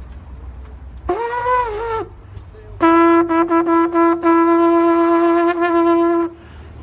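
Shofar (ram's horn) blown: a short blast with a wavering pitch about a second in, then a long, steady held blast lasting about three and a half seconds.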